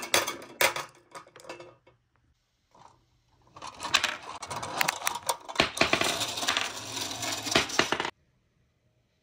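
Glass marbles rolling off a wooden slope and clattering into the metal box of a tin toy truck, the clicks thinning out over the first two seconds. After a short pause there is a longer stretch of marbles clinking and rattling against the tin truck, which stops abruptly about a second before the end.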